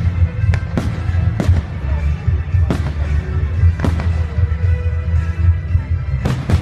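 Aerial firework shells bursting with sharp bangs at irregular intervals, two coming close together near the end, over loud music with a heavy bass.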